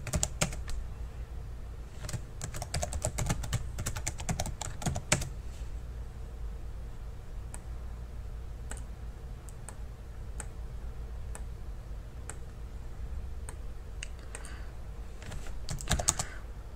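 Typing on a computer keyboard. There are quick runs of keystrokes near the start and from about two to five seconds in, sparse single taps through the middle, and another quick run near the end, all over a steady low hum.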